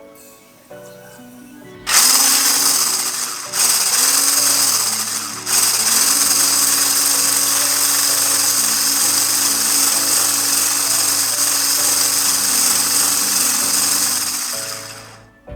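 An electric household appliance motor, like a kitchen mixer or power tool, runs in two short bursts and then steadily for about nine seconds before switching off, over soft background music.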